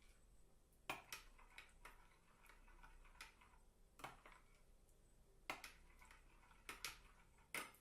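Faint, irregular clinks of a spoon against a glass while egg yolk is stirred into warm milk, about nine small clicks with uneven gaps between them.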